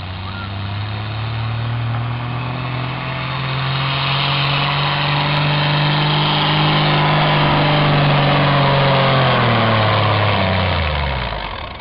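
Pulling tractor's engine running hard under load as it drags the sled, a steady deep drone that grows louder as it comes down the track. Near the end its pitch falls and the sound drops away.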